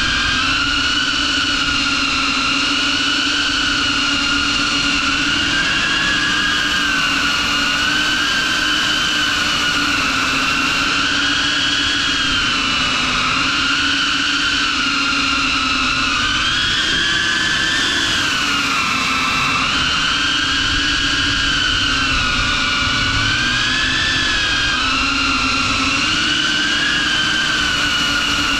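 FPV quadcopter's brushless motors and propellers on a 6S battery, heard from its onboard camera: a steady multi-tone whine that rises and falls in pitch as the drone flies.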